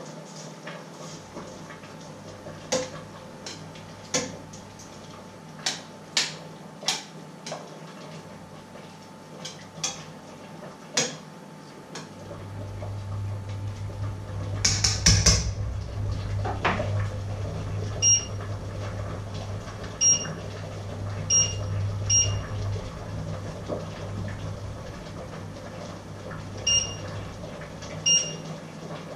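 A spoon clinking against a metal cooking pot several times while food is stirred, then a steady low hum comes on, a clatter of pots, and a series of short electronic beeps from the electric hob's controls.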